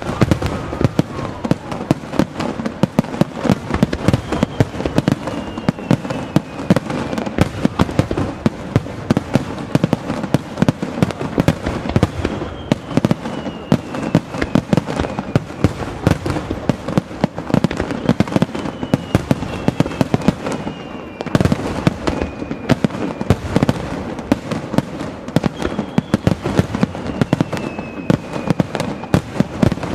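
A rapid barrage of aerial fireworks bursting, many bangs a second, beginning suddenly. High whistles that fall in pitch run through it about four times.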